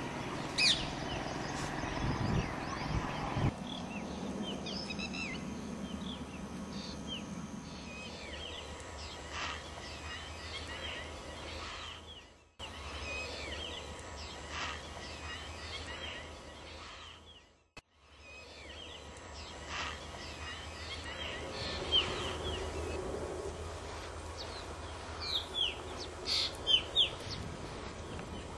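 Several wild birds calling: short chirps and whistles scattered throughout, a few louder, sharper chirps near the end. A low rumble lies under the first few seconds.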